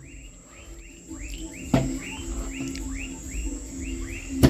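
A bird chirping over and over, short downward-sliding chirps about three a second. Two sharp knocks cut in, one about two seconds in and one at the end.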